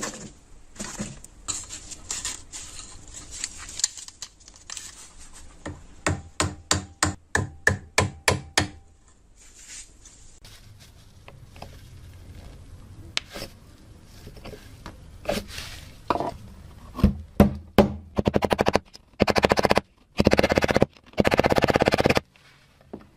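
Hand work on a rusted metal oil lamp: scraping and rubbing, then a run of about a dozen quick, even taps, about four a second. Near the end come a few sharp knocks and three or four loud bursts of steady noise, each about a second long.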